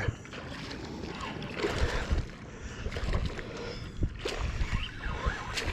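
Wind rumbling on the microphone, with scattered knocks and rustles of handling aboard a fishing kayak while a small hooked snook is being brought in.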